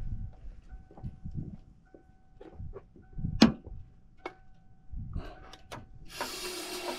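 The 1987 Mustang's warning chime dings faintly over and over, with scattered clicks and knocks, the sharpest about halfway through. About six seconds in, a steady aerosol hiss begins: brake cleaner being sprayed into the intake.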